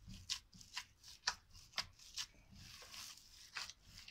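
A gloved hand kneading raw minced meat in a glass bowl, with a short sound at each squeeze about twice a second.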